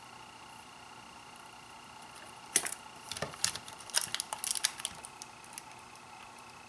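A flurry of small clicks, taps and crinkles, from about two and a half seconds in to about five seconds, as the Kapton-taped circuit board is shifted and handled on the bench mat between soldering the corner pins of an IC socket. A faint steady whine runs underneath.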